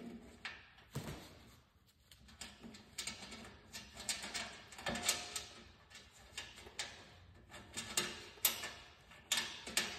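Irregular light metal clicks and clinks of a nut, washer and bolt being fitted by hand on a snowblower's scraper blade.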